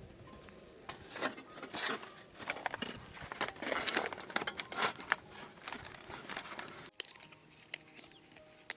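Crumpling and crinkling of a thin wrapping being handled, in irregular rustles that stop abruptly about seven seconds in.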